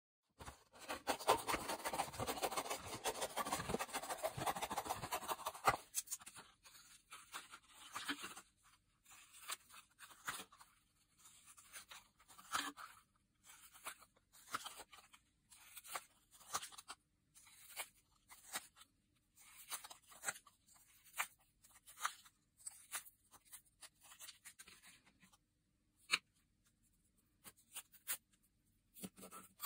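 Scissors cutting through a paper plate's ridged rim, a run of short crisp snips about one a second. Before them comes a few seconds of continuous scratchy rustling of the plate, and near the end a few soft taps as cut pieces are laid down.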